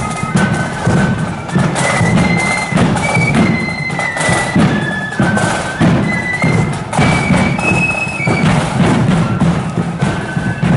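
Parade marching band playing a tune outdoors: a high, piping melody over a steady, regular drum beat.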